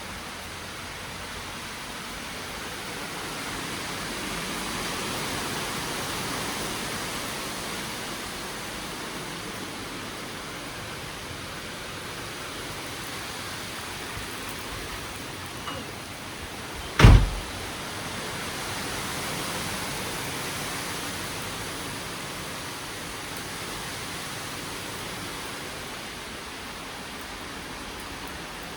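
Steady rush of rain and wind from a severe thunderstorm, swelling twice with gusts. A single sharp, loud bang cuts in a little past halfway.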